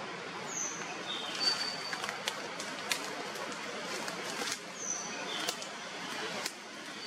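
Outdoor forest ambience: a steady hiss with a few short, high chirps and scattered sharp clicks.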